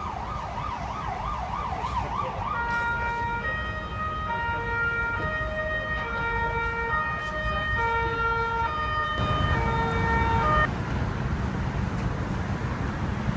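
An emergency vehicle siren wailing fast, about four sweeps a second, for the first couple of seconds. It is followed by a run of held tones that step between several pitches, over city traffic rumble that grows louder near the end.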